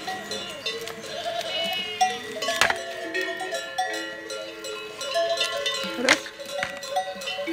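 A large herd of goats milling in a pen: goat bells clanking and ringing over one another as the animals move, mixed with goats bleating. A couple of sharp clanks stand out, one about two and a half seconds in and another about six seconds in.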